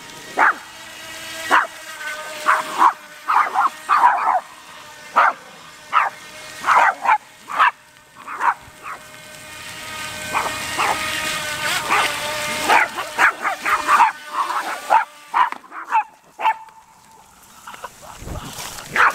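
Small dogs barking over and over, about one to two barks a second, at a radio-controlled boat. Under the barks runs the steady whine of the RC boat's motor as it speeds across the water.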